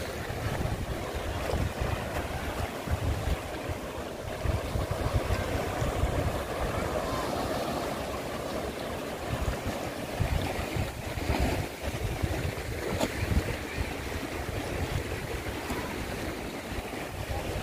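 Small sea waves washing against rocks and sand on a rocky shore, with wind gusting on the microphone.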